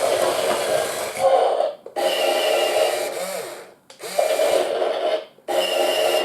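Remote-controlled Star Wars AT-AT U-Command toy in operation, sounding in four bursts of one to two seconds that each stop sharply: a loud, rasping mechanical noise with steady tones in it.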